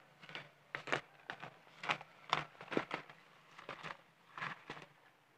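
Weeds being pulled up by a gloved hand: a string of short, irregular rustles and crackles as leafy stems are gripped and torn out of the soil.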